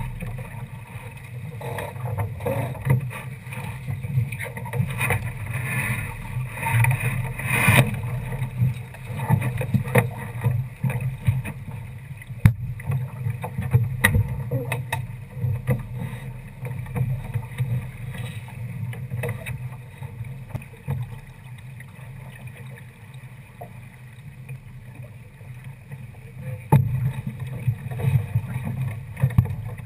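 Water rushing and slapping along a Mercury-class sailboat's hull as it sails under way, with a few sharp knocks from gear aboard.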